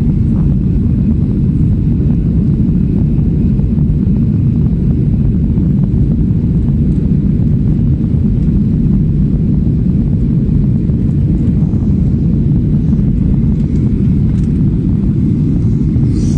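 Airliner cabin noise heard from a window seat: a steady, unbroken low rumble of the engines and airflow.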